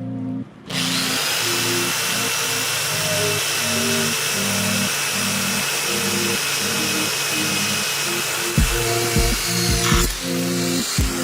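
An electric power tool starts about a second in and runs with a steady high whine, its pitch dipping briefly near the end, over background music with organ-like chords.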